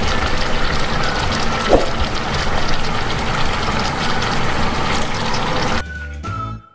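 Water bubbling hard in a pot of crabs, a dense, steady rushing that cuts off suddenly near the end.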